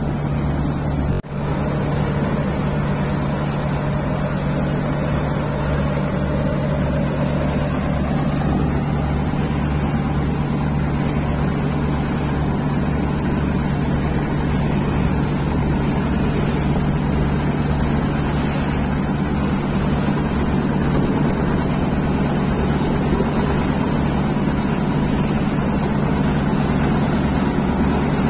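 Steady low drone of a river vessel's engine heard from its own deck, with an even rush of water and wind noise. A short break with a click comes about a second in.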